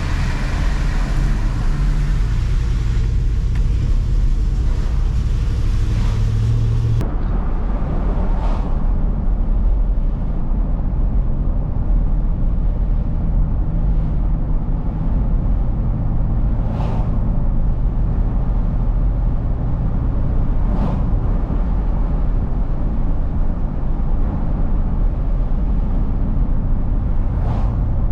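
Steady low rumble of a vehicle on the road, with a few brief whooshes of other vehicles passing.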